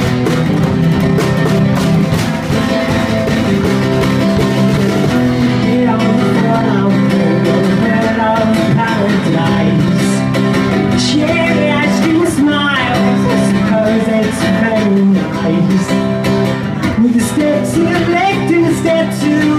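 Live band music: an acoustic guitar strummed over a drum kit with regular cymbal and drum hits, a voice singing along at times.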